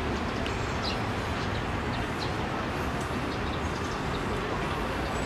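Steady outdoor background rumble with faint, brief bird chirps scattered through it.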